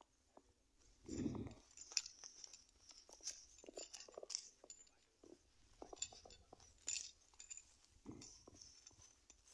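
Faint footsteps crunching on dry grass and fallen leaves, with small irregular clicks and rustles close by and two louder dull thumps, about a second in and near the end.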